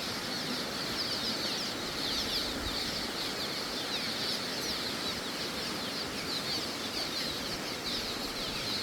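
A flock of small birds calling throughout in many quick, short, falling chirps, over the steady rush of the river below.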